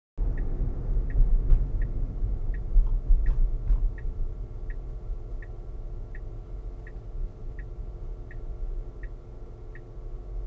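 Tesla Model Y's turn-signal indicator ticking steadily, about one and a half ticks a second, over low road rumble in the cabin that eases off as the car slows.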